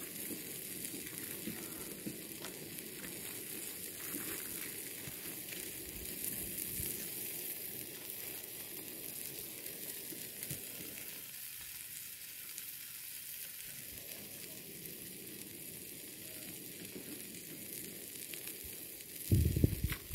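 A pan cooking on a portable gas camping stove: a steady sizzling hiss. Near the end comes a brief, loud low rumble.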